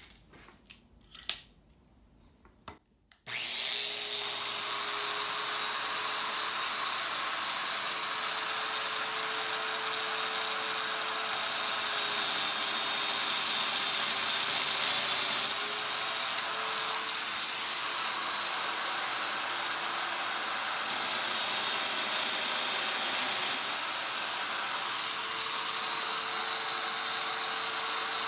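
A Festool Domino joiner and its dust extractor start about three seconds in, after a few light knocks, and run steadily. The motor's whine dips slightly in pitch a few times.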